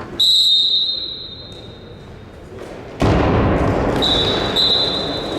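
Referee's whistle in a handball game: one long shrill blast, then two short blasts near the end. Between them, about three seconds in, comes a sudden loud burst of noise from the hall.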